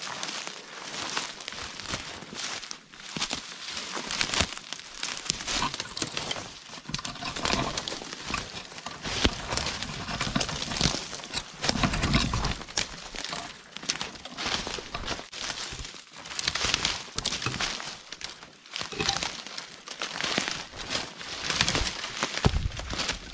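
Footsteps crunching through dry dead leaf litter and twigs while pushing through dense bare brush: a continuous, irregular crackling. A heavier, duller thump comes about halfway through.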